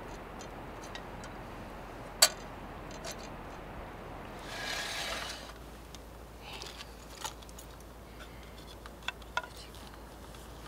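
Quiet handling sounds of a metal candle lantern and small objects on a wooden camp table: one sharp click about two seconds in, a short rustle a little before the middle, and a few small taps and ticks in the second half.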